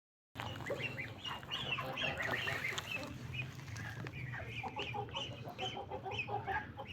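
Chickens clucking, a dense run of many short, overlapping calls, higher-pitched in the first few seconds and lower after about four seconds.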